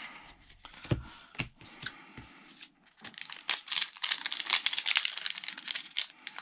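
A few soft knocks as cards are handled, then from about three seconds in a trading-card booster pack's foil wrapper crinkling rapidly as it is torn open.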